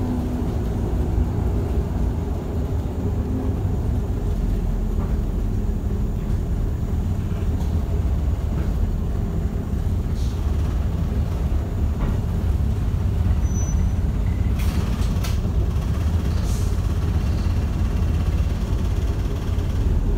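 Daimler Fleetline double-decker bus heard from inside the lower saloon, its rear-mounted diesel engine running with a steady low rumble as the bus drives. A few short sharp noises come about three-quarters of the way through.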